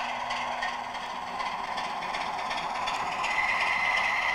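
Model Class 25 diesel locomotive's older ESU sound decoder playing diesel engine sound through its small onboard speaker as the loco runs along the track, a thin sound that is not wonderful by today's standards. A steady high whine joins about three seconds in.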